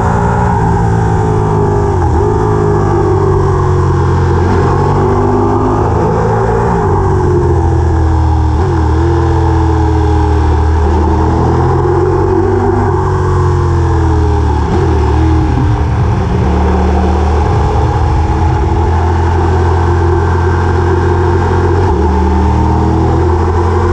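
A motor vehicle's engine running loudly and continuously, its pitch dipping and climbing again several times as speed or gears change.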